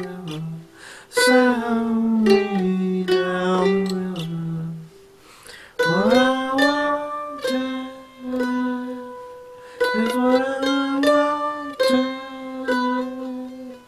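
F-style mandolin picked in steady strokes while a man sings long held notes over it, sliding up into several of them.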